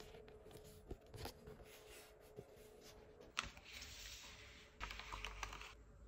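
Sheets of printed ephemera paper and a small packet being handled: faint paper rustling and crinkling with a few light taps, and two short stretches of louder crinkling in the second half.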